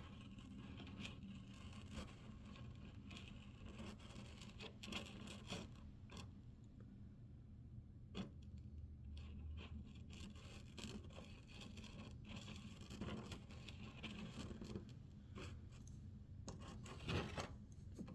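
Faint, irregular scraping and light ticks from a tool and hands working the plastic fairing, over a low steady hum.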